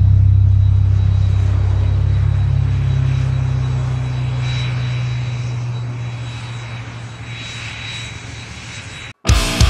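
Background music: a low, steady droning chord that slowly fades out at the end of a heavy song. The drone cuts to silence about nine seconds in, and the next loud, heavy track starts right after.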